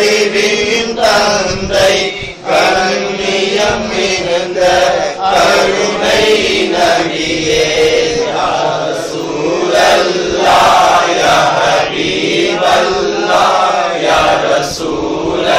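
A group of voices chanting an Islamic devotional chant together, continuous and loud.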